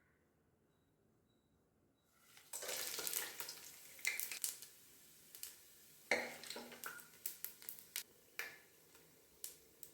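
Food sizzling in a hot cooking pan, starting about two seconds in, with scattered clicks and knocks of a utensil against the pan.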